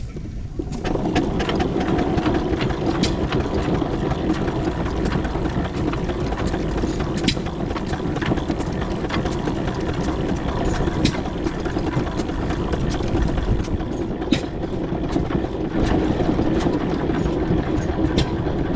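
A 4-inch scale McLaren steam traction engine on the move, heard from on board: a steady mechanical running noise that swells about a second in, with scattered sharp clicks and knocks from the running gear.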